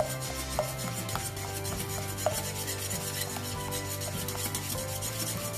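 Wire whisk beating a runny egg-and-sugar mixture in a glass bowl, the wires scraping and clicking rapidly and rhythmically against the glass.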